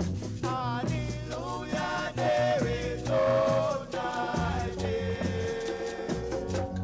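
Roots reggae record playing over a sound system: a heavy, pulsing bass line with a melody line gliding over it.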